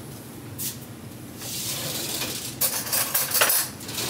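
Metal cutlery clattering as a spoon is fetched: a sliding rustle about a second and a half in, then a quick run of clinks.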